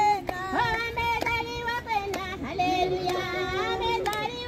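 A group of high voices, women and children, singing a hymn together, several melodic lines overlapping with long held notes.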